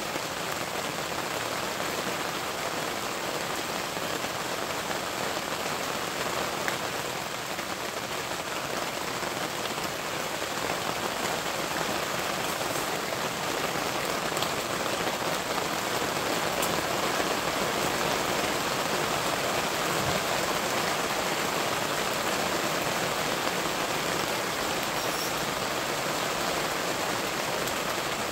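Steady rain pattering on the fabric roof of a canopy shelter, heard from underneath it, growing slightly heavier about halfway through.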